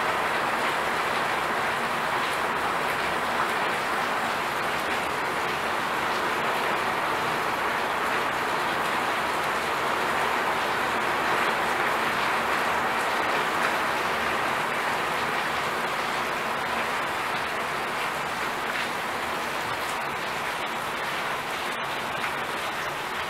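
A steady, even hiss like rain, holding the same level throughout.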